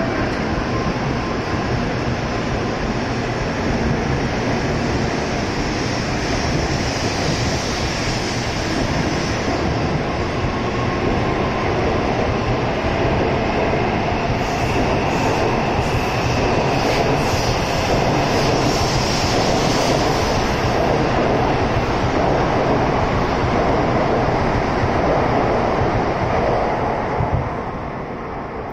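N700A Shinkansen train departing and running past close by: a steady rushing rumble of wheels on rail that grows a little as it gathers speed. About halfway through, a run of sharp crackling clicks joins it for several seconds. The noise falls away near the end as the last car clears.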